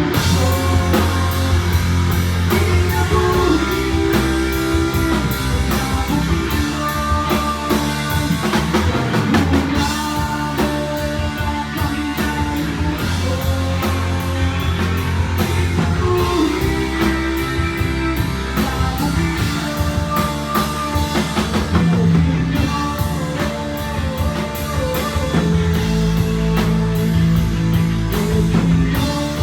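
A rock band playing: guitar over a drum kit, with low held bass notes.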